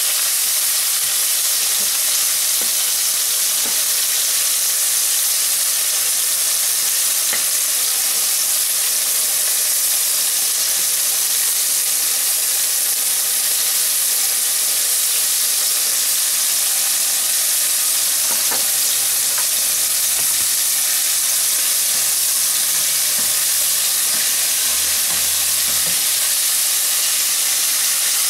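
Small flour-coated fish deep-frying in a pot of hot oil: a steady sizzle.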